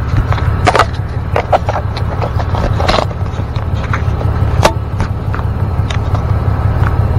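A hotshot truck on the move: the steady low drone of its engine and road noise, with several short sharp clicks scattered through it.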